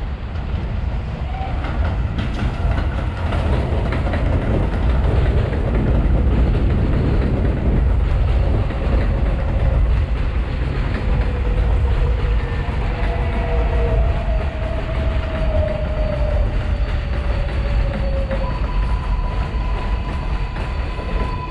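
R142/R142A subway train running past on the rails: a heavy, continuous rumble with wheel clickety-clack. In the second half a whine falls in pitch, and a steady tone comes in near the end.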